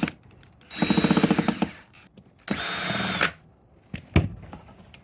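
Cordless drill/driver running in two short bursts of about a second each, backing screws out of a spa pack cover, then a few light clicks.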